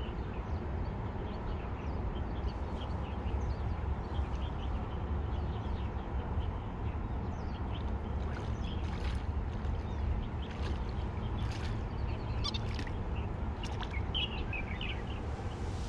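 A steady low rumble with scattered short high bird chirps and clicks over it, busiest in the second half, with a quick run of chirps near the end.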